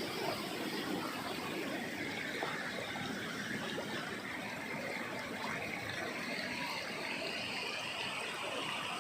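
River water rushing steadily through a dam.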